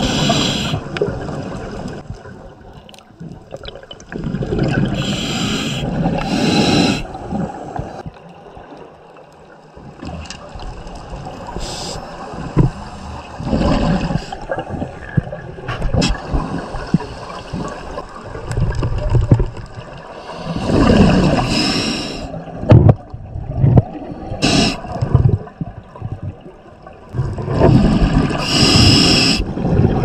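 Scuba diver breathing underwater through a regulator: bursts of exhaled air bubbling out every several seconds, with quieter bubbling and rumbling between.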